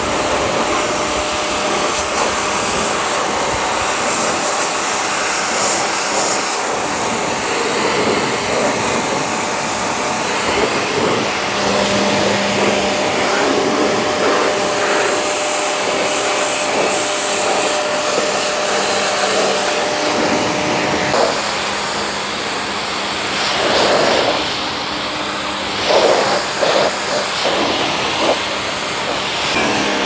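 Bosch AQT 125-bar, 1500 W electric pressure washer running steadily, with its high-pressure water jet spraying onto a car's wheels and body. The spray swells louder a couple of times near the end.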